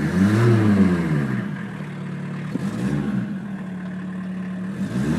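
1981 Volkswagen Rabbit pickup's 1.6-litre diesel engine idling, heard from inside the cab, revved up and let fall back to idle twice, with a third rev starting near the end.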